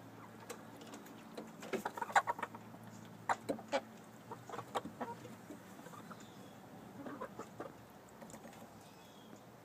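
Domestic hens clucking in a few short clusters of sharp notes, the loudest about two seconds in, over a faint steady low hum.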